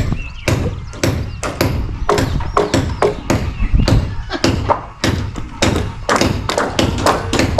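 Hammers knocking nails into wooden roofing timbers: irregular, sharp knocks, a few a second.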